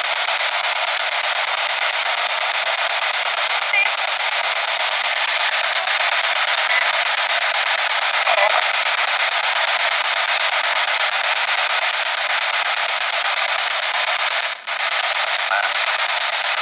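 P-SB7 spirit box sweeping the radio band: steady radio static hiss broken by brief snatches of broadcast sound, about four seconds in and about eight seconds in, with a short dropout near the end. The investigator takes the fragments for spirit replies, captioning them 'Hello' and 'Maz'.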